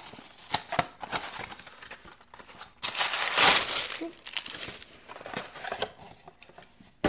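Crinkled kraft paper wrapping and a cardboard box rustling and crinkling as a candle is unwrapped, with scattered small clicks and scrapes and one loud stretch of crinkling about three seconds in.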